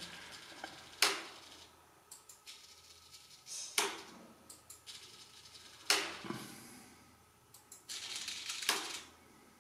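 Small hobby micro servos under a model railway layout briefly whirring as they throw the turnouts, about four short moves roughly two seconds apart.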